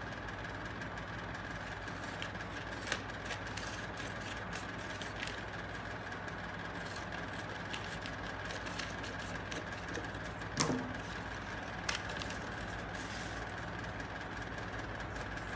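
Paper being handled and cut with scissors: scattered light clicks and rustles, the sharpest about ten and a half seconds in, over a steady background hum.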